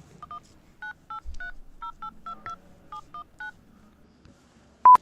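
Mobile phone keypad dialing tones: about a dozen short two-tone beeps as a phone number is entered, then one loud short beep near the end.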